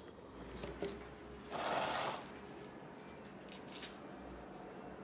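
Faint handling noise: a short rustling scrape about a second and a half in, then a few light clicks, as of firework rockets with wooden sticks being moved about on a cloth-covered table.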